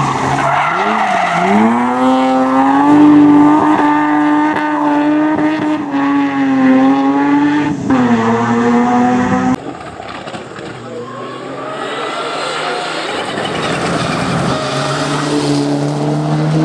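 Race-prepared BMW E21 3 Series hillclimb car accelerating hard out of a hairpin. Its engine note climbs over the first couple of seconds, then holds at high revs and cuts off suddenly about ten seconds in. After that a fainter race-car engine grows louder near the end as a Mitsubishi Lancer Evolution approaches.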